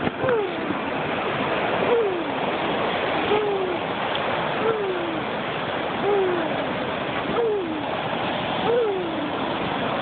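A small child's voice makes a short falling vocal sound effect for his steps, seven times, about once every second and a half. A steady rushing noise runs underneath.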